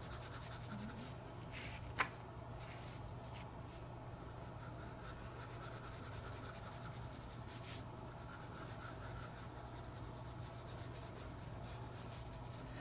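Graphite pencil shading on sketchbook paper: a faint, steady scratching of the lead rubbing back and forth across the page as a shadow is built up. A single sharp click about two seconds in.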